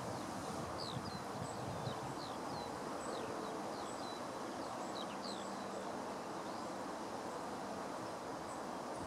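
Steady outdoor background noise, with faint short chirps and quick falling whistles from small birds scattered through it.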